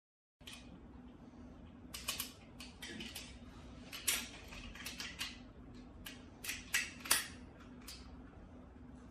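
Sharp clicks and light knocks of plastic and metal slingshot-rifle parts being handled and fitted together, irregular and a few a second at their busiest, over a steady low hum.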